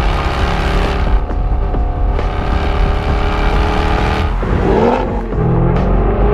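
Jaguar XFR-S's supercharged 5.0-litre V8 running loud under throttle, with a quick dip and rise in pitch about four and a half seconds in.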